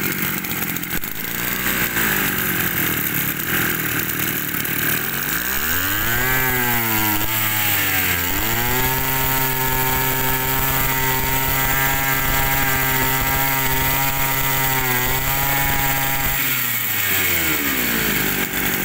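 Kioritz 281 brush cutter's small two-stroke engine running at idle, then revved up about five seconds in. The revs dip briefly, are held high for about eight seconds, and drop back to idle near the end.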